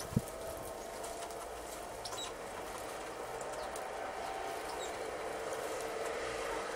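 Steady outdoor hum with a faint tone that slowly falls in pitch, like street traffic, with faint high ticks and a few short, thin calls of tits scattered through it.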